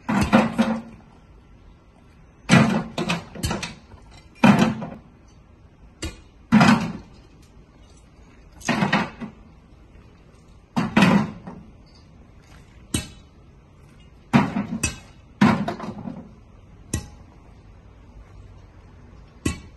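Broken concrete chunks tossed by hand into a skid steer's steel bucket, landing with sharp clunks roughly every second or two, sometimes two or three in quick succession.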